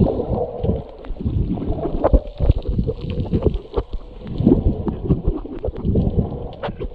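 Swimming in the sea, heard as muffled sloshing and gurgling water with many irregular low thumps of strokes and movement.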